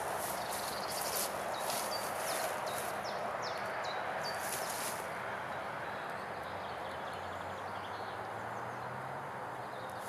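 Small birds chirping in a forest: short, high, falling notes repeated over a steady rushing background. Rustling steps through dry undergrowth fade out over the first few seconds, and a faint low hum comes in later on.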